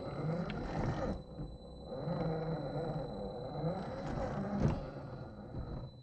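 The 1/10-scale RGT Rescue LC70 RC crawler's electric motor and gearbox whining under load as it crawls over rocks, the pitch wavering with the throttle. The audio is played at half speed, so the whine sounds deep. There is a single sharp knock about four and a half seconds in.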